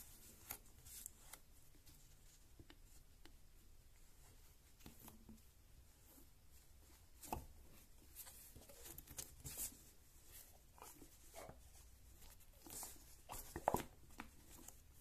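Faint rubbing and soft clicks of hands squeezing and kneading a giant stress ball on a tabletop, getting busier about halfway through and loudest near the end.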